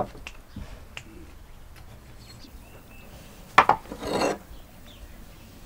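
Light clicks and knocks of kitchen work with vegetables and utensils. A sharp knock comes about three and a half seconds in, followed by a short scraping rustle.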